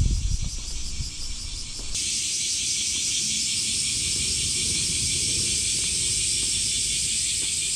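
Steady, high-pitched chorus of insects, a continuous buzzing hiss that suddenly gets much louder about two seconds in. Low rumbling can be heard under it at first.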